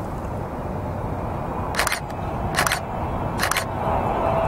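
Three quick camera-shutter clicks, a bit under a second apart, over the steady low rumble of a Qatar Airways Boeing 777-300ER on final approach, whose engine whine grows near the end.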